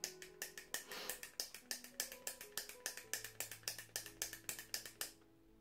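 Click-up stylo lipstick being clicked at its end button over and over, about five sharp plastic clicks a second, pushing the lipstick up. The clicking stops near the end.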